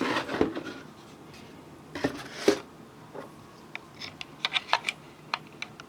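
A cardboard keyboard box being handled: a scrape, two knocks about two seconds in, then a quick string of light taps and clicks.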